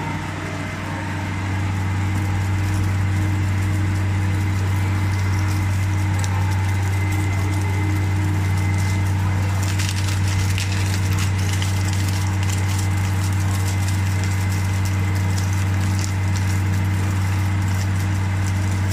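Flake ice machine running, its Refcomp piston compressor and air-cooled condenser fans making a steady low hum. From about ten seconds in, a plastic shovel crunches and scrapes through a pile of fresh, loose ice flakes, on and off.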